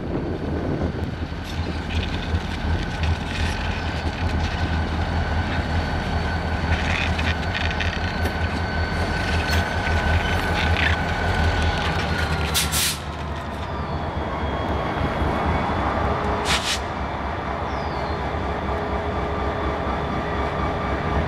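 A pair of Reading & Northern diesel locomotives rolling slowly over the track, engines rumbling steadily under a steady whine that dips a little past halfway. A couple of short, sharp sounds come from the wheels and running gear a little past halfway and again later.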